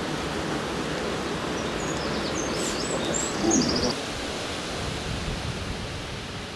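Storm wind buffeting the microphone and rushing through trees, a steady noise with low rumble, briefly louder about three and a half seconds in. A few faint bird chirps come through about two to four seconds in.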